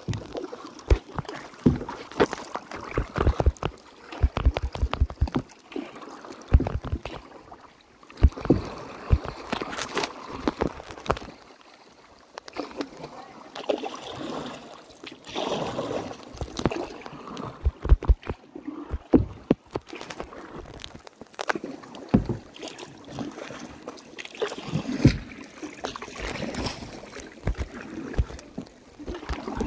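Kayak being paddled: paddle blades dipping and splashing in the water, with water sloshing and dripping and irregular sharp knocks throughout.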